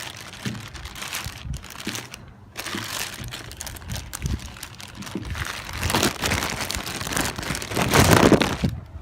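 Packaging being handled, rustling and crinkling in irregular bursts. It is loudest about six and eight seconds in and stops abruptly near the end.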